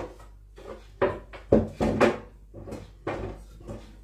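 Knocks and clatters of kitchen items being handled and moved at a kitchen sink and counter, with several sharp knocks (right at the start, then around one, one and a half, two and three seconds in) and quieter rustling and clinking between.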